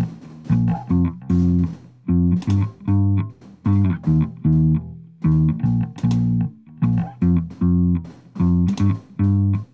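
Electric bass line through an amp simulator, played back on its own: short notes with small gaps between them in a repeating riff. It is EQ'd with a 40 Hz low cut and a high cut at about 3.7 kHz, and the high cut is switched off for a few seconds in the middle.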